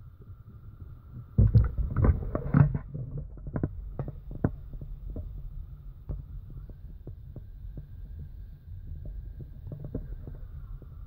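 Close handling noise: a cluster of loud knocks and clicks a second or two in, then lighter scattered clicks every half second or so, over a low rumble and a faint steady high tone.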